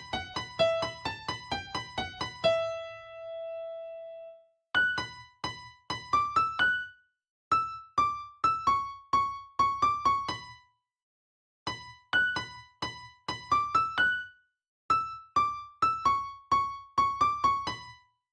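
Background music: a solo keyboard melody of quick, struck notes played in short runs, with brief silences between the phrases.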